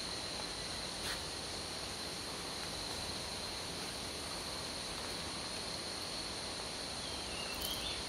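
Steady forest background: an even hiss under a continuous high-pitched insect drone.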